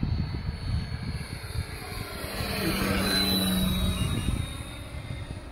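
Radio-controlled P-47 warbird model making a close pass overhead. The engine sound from its onboard speaker system and its propeller swell to a peak about three seconds in and then fade, with a slight drop in pitch as it goes by. Wind buffets the microphone.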